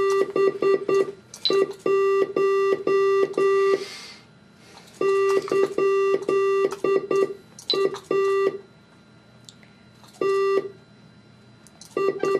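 Morse code feedback tone from a head-switch Morse code system: one steady-pitched beep sounding short and long pulses, dots and dashes, in quick groups with pauses between them. Each group keys a Morse command that moves the mouse and operates the computer.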